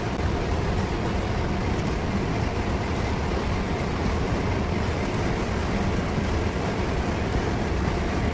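Large exhaust fan running: a steady, low-pitched drone with a faint hum, unchanging throughout.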